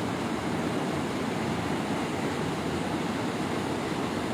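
Steady rushing noise of the swollen, flooded Kabul River.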